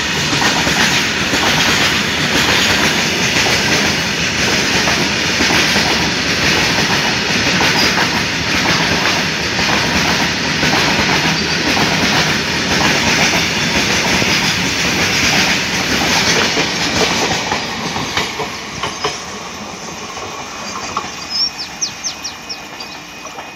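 Goods train wagons rolling past close by, their wheels clattering over the rail joints in a steady clickety-clack. From about 17 s in the sound fades as the last wagon and brake van pull away.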